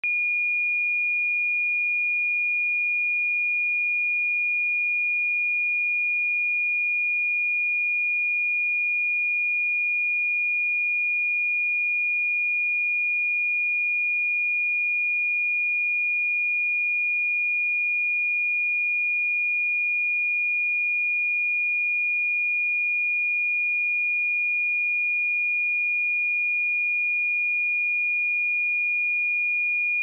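A pure 2434 Hz sine-wave test tone, a single steady high-pitched beep-like tone held at constant pitch and level.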